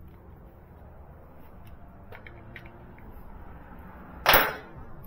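A few faint clicks, then about four seconds in a single loud, sharp clatter as a hand tool is set down on the motorcycle lift.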